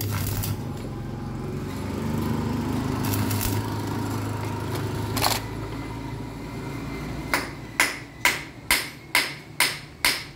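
Stick-welding arc crackling over the welder's steady hum, with a sharp click about five seconds in. From about seven seconds in, a steel hammer strikes the hot welded tube about eight times, a little over two blows a second, knocking at the weld to work the broken bolt loose.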